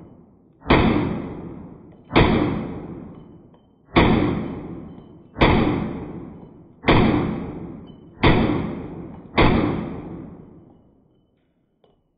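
Beretta 85BB Cheetah .380 pistol firing seven shots, about one and a half seconds apart. Each shot rings out and dies away over about a second. A faint metallic click comes near the end.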